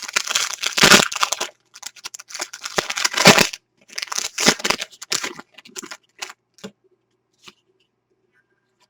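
Foil trading-card pack wrapper crinkling and tearing as the pack is opened and cards are handled, in three rustling bursts, followed by a few light clicks of cards being set down.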